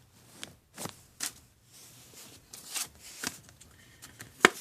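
Thin plastic packaging from a Lego minifigure bag being handled: a scattering of short crinkles and crackles, the sharpest one near the end.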